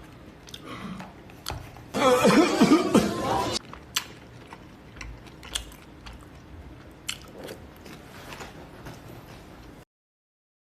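Scattered faint clicks and knocks over a quiet room background. About two seconds in comes a brief, loud, muffled voice-like sound lasting over a second. The audio cuts out shortly before the end.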